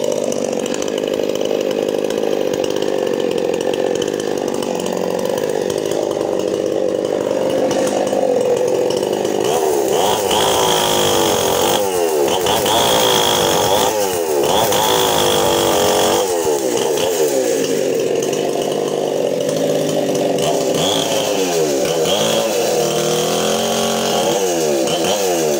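MTN 9000 chainsaw engine running steadily, then throttled up and down over and over in the second half, its pitch repeatedly dropping and climbing back.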